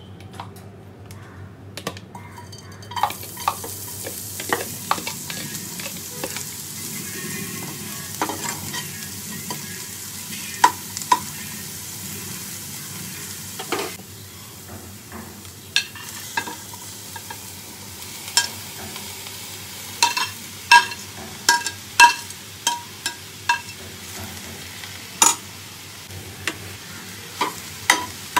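Food frying in hot oil in a kadai: a steady sizzle starts about three seconds in. Over it come repeated sharp clicks and scrapes of a metal spoon against the pan as chopped vegetables and then sliced mushrooms are stirred, the clicks coming thicker in the second half.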